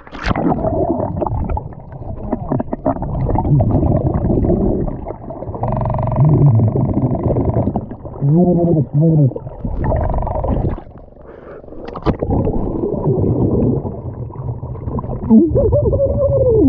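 Muffled underwater sound of a diver going down into the river: dense low rushing and bubbling, a few sharp knocks, and wavering muffled voice-like calls about halfway through and again near the end.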